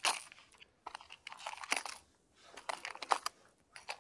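Irregular clicks and crackles close to the microphone, in uneven clusters with short pauses: handling noise from the angler's hands and fishing gear.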